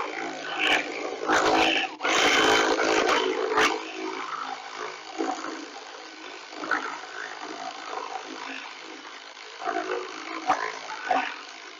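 Power ratchet with a 3/4 socket running in short bursts as it snugs down quick release bolts on a bunker board clip, with light metallic clicks and knocks between the bursts. The bursts come near the start, again about two to three and a half seconds in, and briefly near the end.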